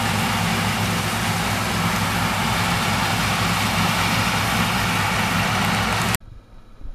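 Heavy farm harvest machinery running steadily, a loud engine and machine noise that cuts off suddenly near the end.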